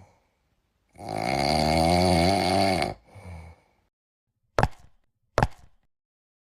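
A long, wavering snore with a short, weaker breath after it, then two sharp knocks about a second apart.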